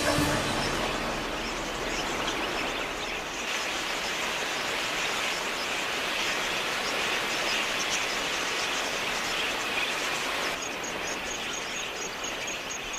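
A large flock of wild budgerigars chattering, many small high chirps blending into a steady hiss.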